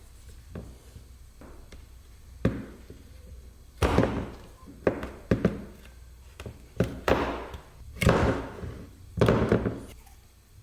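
Hands working a rubber hose and fittings on the idle control valve: about eight irregular knocks and clunks with scraping between them, the loudest in the second half.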